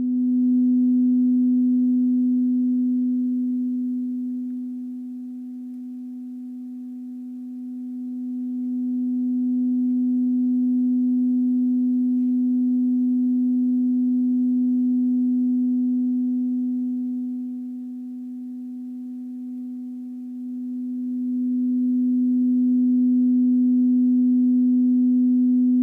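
Unboxed loudspeaker driver, acting as a dipole, playing a steady low pure tone as it is turned. The tone drops in loudness twice, about five and about eighteen seconds in, as the speaker's edge passes the line of its null plane, where front and back cancel. It comes back up when the front or back faces the listener.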